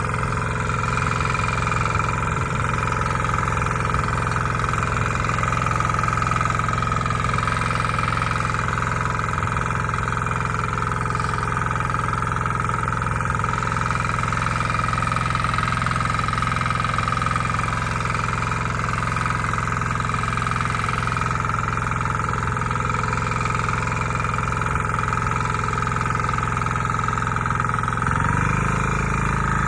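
Bolat Atom walk-behind power tiller's engine running steadily as it cuts a furrow, its note shifting near the end.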